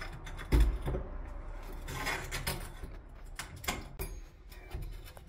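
Scattered knocks, clicks and scrapes from working at a door's stuck glass pane, with a heavier thump about half a second in.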